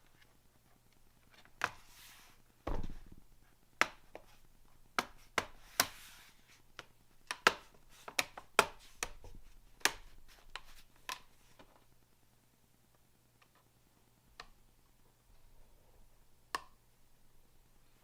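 Irregular sharp clicks and taps of hard plastic and metal laptop parts being handled, with a low thump about three seconds in; the clicks come thick for about ten seconds, then thin out to a few.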